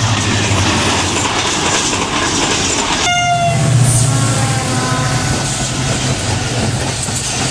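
Diesel locomotive hauling a passenger train passing close by, with loud rumble and wheel clatter on the rails. About three seconds in, a short horn blast, followed by a steady deep engine drone as the locomotive and coaches go by.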